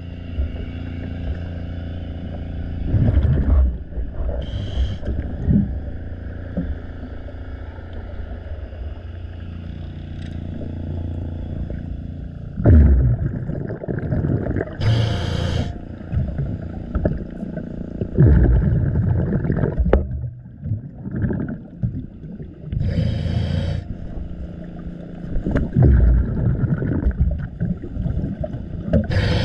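Underwater sound of a scuba diver's breathing: bubbly exhalation bursts every few seconds and a few short regulator hisses, over a steady low drone.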